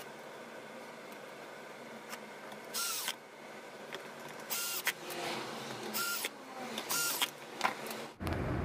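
Cordless drill-driver spinning in four short runs, driving screws to fasten the monitor's metal board cover back on.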